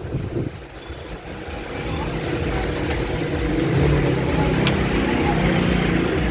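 An engine running steadily, building up in level over the first two seconds and then holding, with one brief tick a little past the middle.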